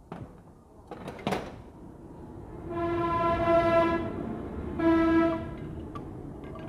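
A horn sounds two long blasts of a steady tone with many overtones, the first lasting over a second and the second shorter, after a couple of sharp metal clicks.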